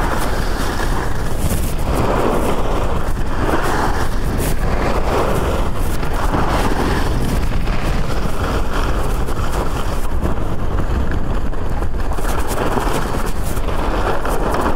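Skis scraping and carving on hard, icy groomed spring snow, a hiss that swells and eases with each turn about every second and a half, under a steady rumble of wind on the microphone at speed.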